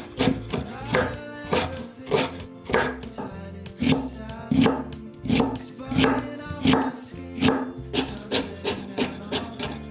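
Kitchen knife julienning daikon radish on a wooden cutting board: a steady run of knife strokes against the board, roughly three a second, over background music.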